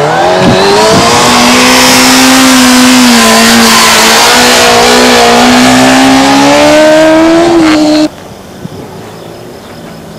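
Motorcycle engine revved hard and held at high revs during a wheelie, its pitch climbing quickly at first, easing slightly, then rising again. It cuts off abruptly about eight seconds in, leaving a much quieter background.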